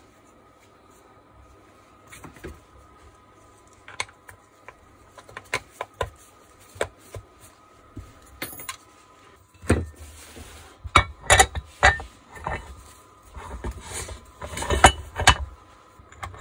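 Clicks, taps and knocks of hands handling and fitting the plastic and metal parts of an angle grinder's housing as it is closed up. The sounds are sparse at first and come thick and fast, with some duller thumps, over the last six seconds.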